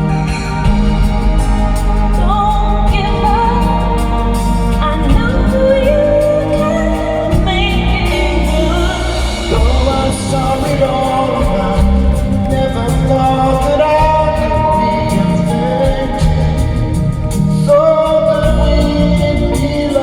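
Live band music with singing over it, played loud and unbroken.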